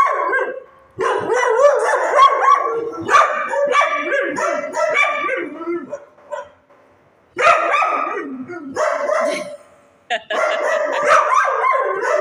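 Dogs barking in loud, overlapping stretches, with a lull about six seconds in and a short break near ten seconds.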